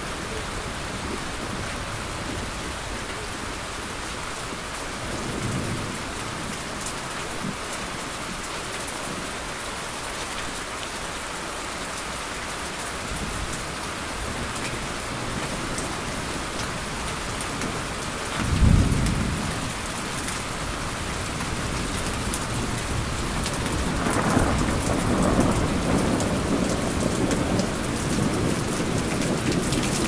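Steady rain with thunder. A faint distant rumble comes early, then a loud, low thunderclap about two-thirds of the way through, and rolling thunder that builds over the last several seconds.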